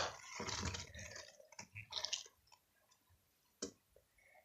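Soft, wet squishing of slime worked in the hands, dying away after about two seconds, then one short click.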